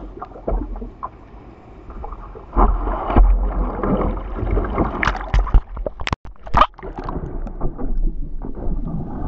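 Sea water splashing and sloshing around the nose of a surfboard as it is paddled out through chop, with a run of sharp splashes about five to seven seconds in. Near the end the sound turns dull as the board is pushed under the water.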